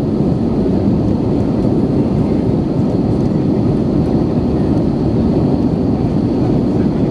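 Steady low rumble inside the cabin of an Airbus A321 in flight: its CFM56 engines and the rush of air along the fuselage, without breaks or changes in pitch.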